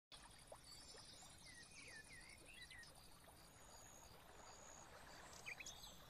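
Faint wetland ambience: scattered short bird chirps and whistles over a low hiss, with a faint steady high trill behind them.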